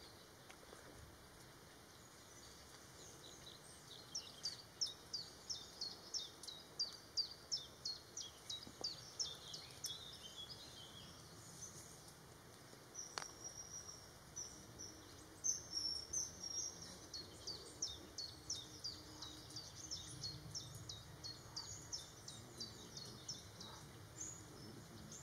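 A bird calling in a rapid series of short, high, downward-sliding notes, a few per second. The run starts a few seconds in, breaks off briefly near the middle, then resumes and keeps going, over faint outdoor background noise.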